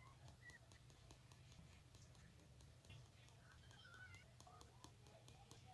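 Near silence: a faint steady low hum, with faint indistinct sounds from the television.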